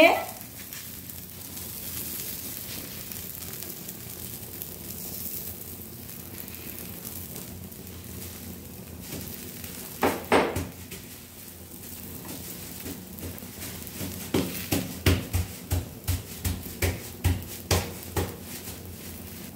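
A makki ki roti (maize flatbread) sizzling gently in ghee on a hot iron tava. There is one louder clatter about halfway through, and a run of light knocks, two to three a second, near the end.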